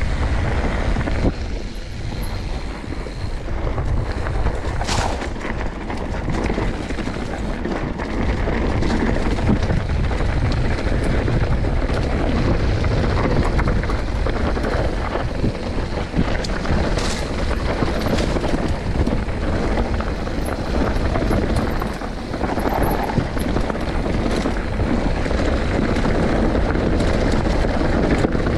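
Wind rushing over the camera microphone and the rolling noise of a mountain bike going down a rough trail, with a few sharp knocks from the bike over bumps.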